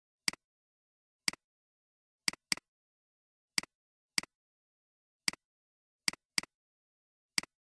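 Computer mouse clicks: about ten sharp clicks at uneven gaps, some in quick pairs, each followed at once by a fainter second tick, with dead silence in between.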